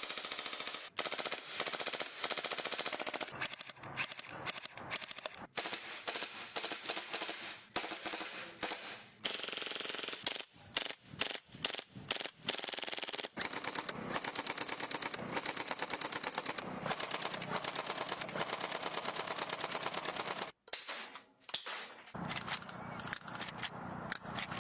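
Gas-powered airsoft guns firing on full auto in long rapid bursts, with a run of separate single shots about halfway through.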